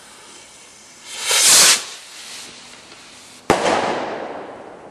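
Firework rocket display: a loud rushing hiss for about half a second, a little over a second in. Then the rocket's burst goes off as one sharp bang about three and a half seconds in, its echo fading over a second or so.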